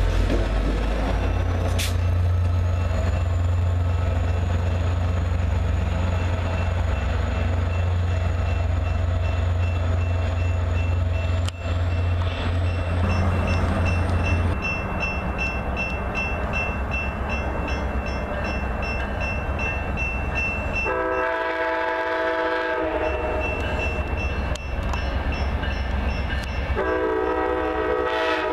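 Diesel passenger train passing close by with a heavy low locomotive rumble. After that drops away, an approaching passenger train sounds a multi-note locomotive horn: one long blast about three-quarters of the way in, and another starting near the end.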